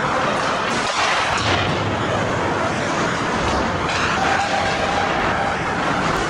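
Steady sound of an ice hockey game heard from the stands: skates scraping the ice and sticks, blurred into an echoing rink noise.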